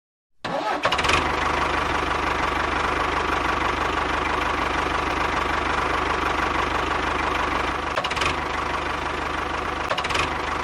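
An engine running steadily at idle, starting abruptly about half a second in, with a few faint clicks near the end.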